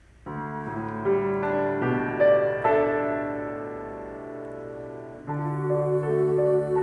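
Solo piano playing a slow, gentle passage: chords begin just after the start, a louder chord near the middle rings and fades away, and a new chord enters about five seconds in.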